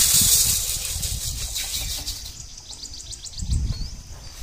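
Dry raw rice grains poured into a large metal basin, a steady hiss that fades out about two seconds in. Then a small bird chirps rapidly in the background, with a soft thump about three and a half seconds in.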